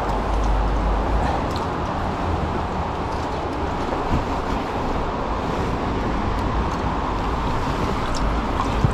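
Shallow creek water running steadily over rocks and around wading boots, an even rushing noise.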